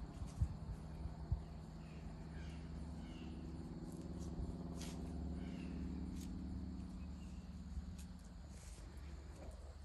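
Outdoor yard ambience: a steady low mechanical hum, with scattered faint bird chirps and high insect-like clicks. Two soft thumps come in the first second and a half.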